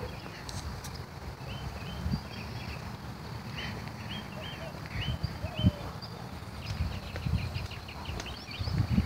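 Outdoor birds chirping, many short hooked chirps in clusters, busiest near the end. Under them are low thumps and rumble from the phone being carried while walking.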